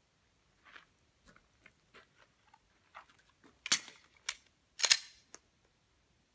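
Semi-automatic pistol being handled: a run of small clicks and rattles, then two loud, sharp metallic clacks about a second apart, each followed by a lighter click, typical of a magazine being seated and the slide being worked.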